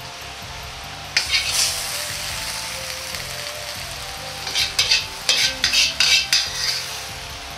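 Metal wok ladle scraping and scooping in a Chinese wok of sizzling stir-fry: one scraping rush about a second in, then a run of quick scrapes and clinks between about four and a half and seven seconds in.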